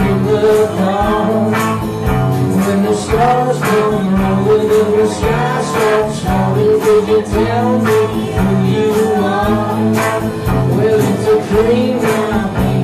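A rock band playing live: electric guitars, bass and drums with a steady beat.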